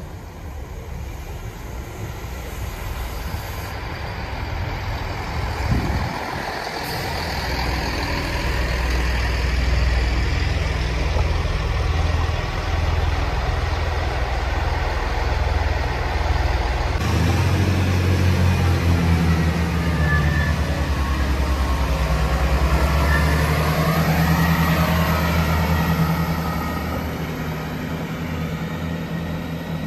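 Chiltern Railways diesel multiple unit running along the platform, its underfloor diesel engines drumming steadily under wheel and rail noise that swells as it nears. Partway through, the engine note steps up to a stronger, steadier hum.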